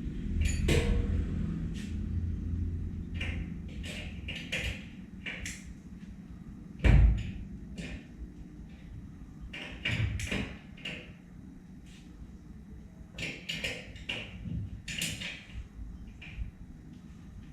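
Scattered knocks, clicks and taps, with one loud thud about seven seconds in, over a low rumble at the start.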